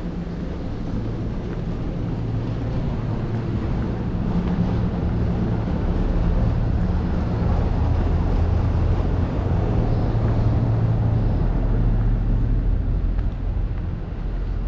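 A steady low engine rumble from a vehicle, growing louder over the first several seconds and easing slightly near the end, over street noise.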